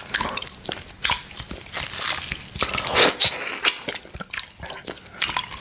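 Close-miked wet mouth sounds of eating orange: irregular biting, chewing and smacking clicks, with a longer wet sound about three seconds in.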